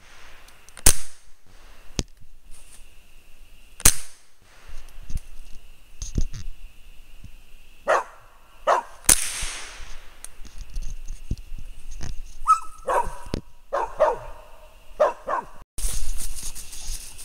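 Mullens feist dog tree-barking at a treed raccoon: sharp, short barks every second or few, some louder than others.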